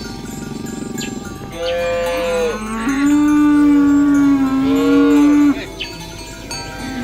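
A cow mooing: one long call of about four seconds, starting about one and a half seconds in. It begins higher, drops to a lower steady pitch, and cuts off suddenly.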